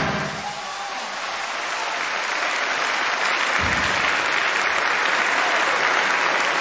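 Audience applause building up just as the ensemble's final sung chord dies away, then holding steady. A single low thud comes about three and a half seconds in.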